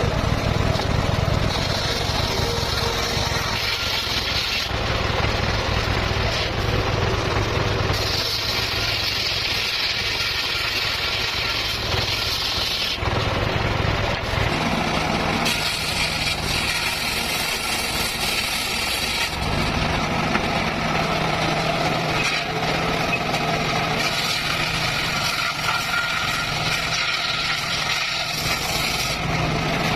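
Motor-driven circular saw running steadily while cutting petung bamboo. A higher-pitched whine rises over the machine noise in several passes of a few seconds each, as the blade goes through the bamboo, then drops back to the running note between cuts.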